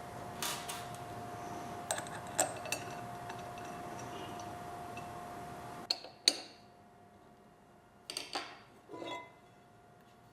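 Light metallic clinks and taps of parts or tools being handled over a steady machine hum. About six seconds in the hum stops, a sharp knock follows, and then a few softer knocks and scrapes.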